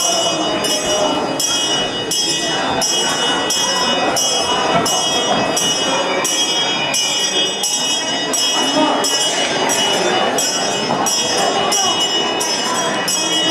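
Music with a steady pulsing beat, about one and a half beats a second, and high sustained ringing tones over it.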